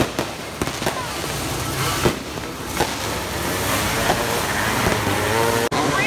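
Fireworks going off: a string of sharp bangs and crackles, the loudest about two seconds in.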